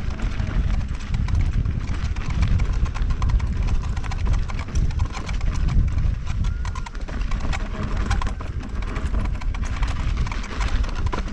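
KingSong S22 electric unicycle ridden over a dirt trail: a steady low rumble with frequent irregular clicks, knocks and small squeaks from the suspension, which come from dust getting into its rubber stoppers.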